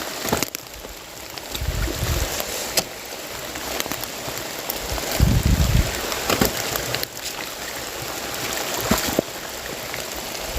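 Heavy rain pouring steadily, with scattered sharp drips and knocks, and two brief low rumbles about two and five seconds in.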